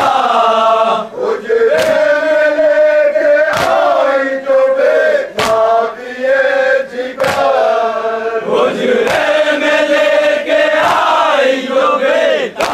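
A group of men chanting an Urdu nauha lament in unison, sustained and wavering. Sharp slaps of matam, hands beaten on the chest, keep time about every two seconds.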